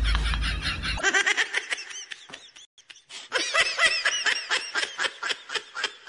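Rapid, high-pitched laughter in quick repeated bursts, breaking off briefly about halfway through.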